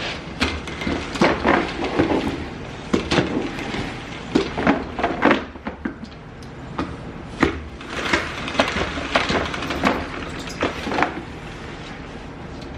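Spin mop worked in its plastic bucket: an irregular series of clattering knocks and scrapes that stops about 11 seconds in.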